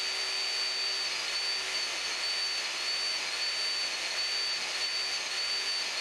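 A diamond cup wheel spinning on a saw-table motor, a steady high whine over a loud hiss, as the teeth of a circular saw blade are ground against it one by one to sharpen their front faces. From about a second in, the whine dips briefly again and again as teeth touch the wheel.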